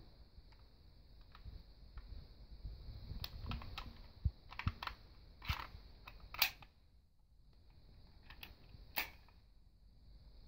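Denix replica Luger P08 pistol being handled, giving a string of sharp metal clicks and light rattles as its magazine is worked into the grip. The loudest click, about six seconds in, fits the magazine seating home.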